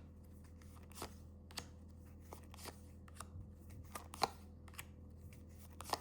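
Tarot cards being handled: a few faint, irregularly spaced light clicks and snaps of the cards, over a steady low electrical hum.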